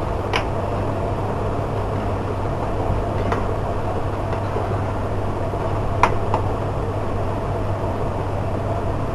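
Wooden spoon stirring thick onion-tomato chutney in a metal pan, with a few light knocks of the spoon against the pan, over a steady low hum and rushing hiss.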